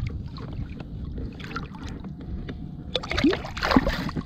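Water sloshing and splashing at the side of a fishing kayak as a released smoothound shark swims off at the surface, with wind rumble on the microphone. The splashing gets louder for about a second, roughly three seconds in.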